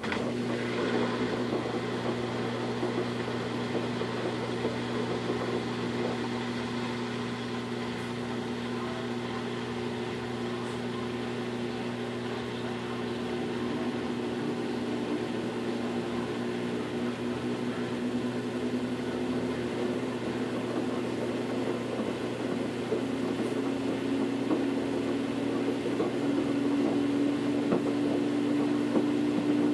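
Top-loading washing machine's motor turning the wash basket with jeans in soapy water: a steady mechanical hum that starts abruptly. Over the last few seconds its pitch rises slowly and it grows a little louder as the basket picks up speed.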